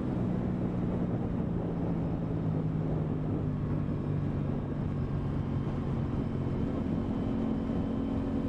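Aprilia Tuono 660's parallel-twin engine running under way at a fairly steady speed, its pitch dipping slightly partway through, with wind rush around it.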